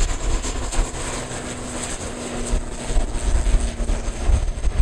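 Propeller aircraft engines droning with a steady hum that fades out near the end, heard through gusty wind on the microphone.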